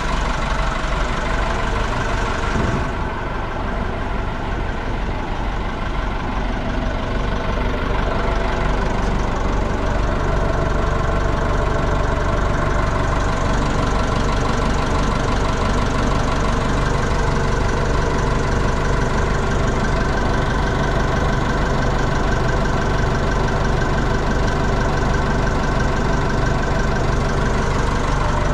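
Engine of a 1978 Cat V60C forklift running steadily, with a brief dip in level about three seconds in and a fuller low note from about ten seconds in.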